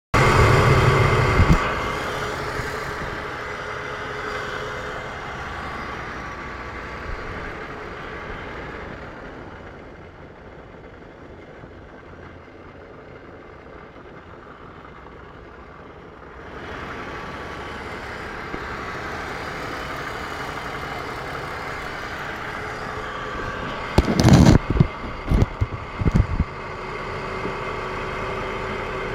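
BMW E46 330xi engine bay: a loud low rumble for the first second or so that cuts off abruptly, then a steady mechanical hum with a whine in it that fades for several seconds and comes back. A cluster of four or five loud short knocks or coughs breaks in around 24 to 26 seconds in.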